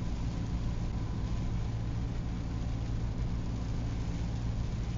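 Steady driving noise inside a vehicle on a wet highway in heavy rain: a low engine and road drone under a constant hiss of rain and tyre spray.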